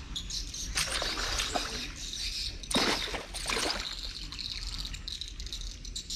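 Hooked snakehead thrashing at the surface on the line, splashing water in two bursts, the louder about three seconds in.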